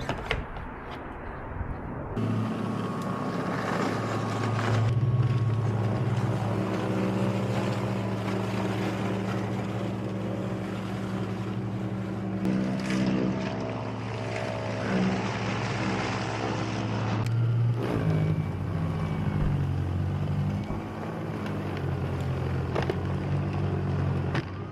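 A few clicks, then about two seconds in a DeWalt battery-powered electric snowblower's motor starts and runs with a steady hum. Its tone shifts twice along the way.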